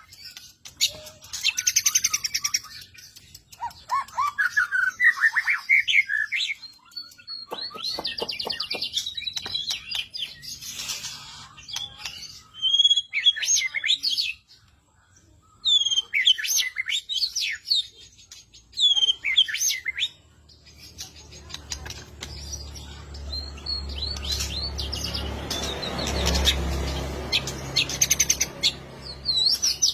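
A songbird singing a varied song of quick chirps, slurred whistles and rapid trills, the kind of song used as masteran to train caged songbirds. In the last third a low rumble and hiss rise under the song.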